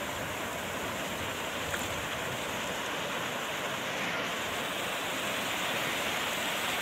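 Sea surf on a sandy beach: small waves breaking and washing in over the shallows as a steady rush of water and foam.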